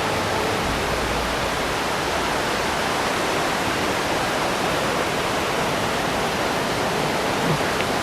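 Steady, even rushing of flowing water, with no change in level until it cuts off at the end.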